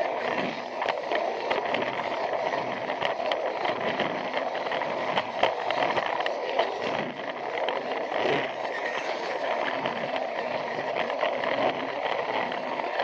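Takara Tomy Plarail battery-powered toy train running on plastic track: a steady motor-and-gear whir with frequent clicks and rattles.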